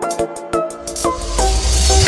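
Electronic background music: short plucked synth notes, with a rising hiss and a deep bass coming in about halfway through.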